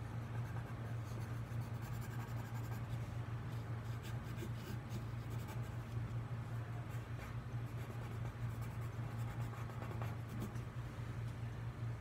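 Watercolor colored pencil scratching across watercolor paper in repeated short strokes as fern leaves are drawn. A steady low hum runs underneath.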